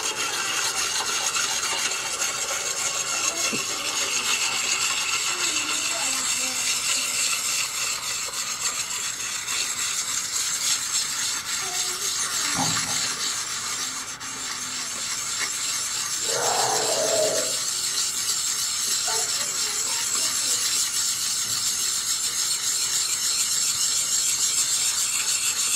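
Small hand-held hone rubbed back and forth along the flat back of a steel planer blade, a steady scraping rasp as the burr left by grinding is taken off. A couple of brief knocks come about halfway through.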